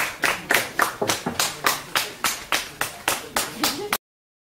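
Hands clapping in a steady rhythm, about three claps a second, cutting off abruptly near the end.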